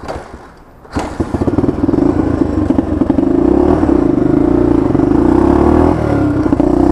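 Honda XLX 250R single-cylinder four-stroke engine being kick-started: it catches about a second in and then runs steadily, with a brief dip near the end as the bike moves off. The rider says it runs with an excess that floods it and makes it hard to start.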